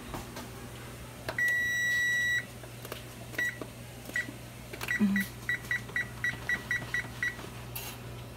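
Kenmore range's oven control panel beeping as the kitchen timer is set to 10 minutes: one long beep of about a second, then single key beeps, then a quick run of about ten short beeps as the minutes are stepped up.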